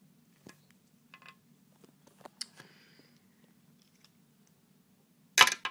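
Faint clicks and taps of a plastic action figure and its removable helmet being handled and set down, several spread over the first few seconds, over a low steady hum. Near the end there is one loud, brief burst of handling noise.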